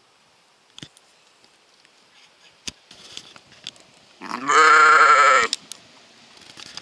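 A sheep bleating once, close by: a single loud, wavering bleat lasting just over a second.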